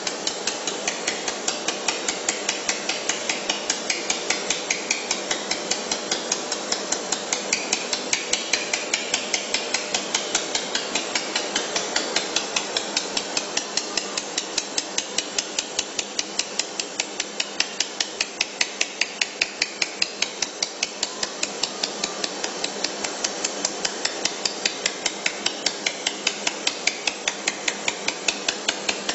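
Pulsed laser welder firing on steel pipe, a sharp tick with each laser pulse at an even rate of about three to four a second, over a steady machine hiss.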